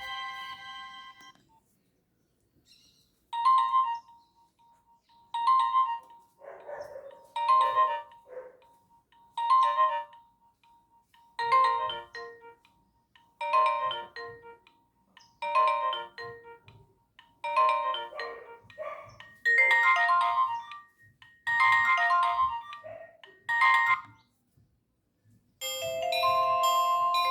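Nokia 1110 mobile phone ringtone playing: a short electronic phrase repeats about every two seconds, about eleven times. The previous ringtone fades out in the first second or so, and a different ringtone melody starts near the end.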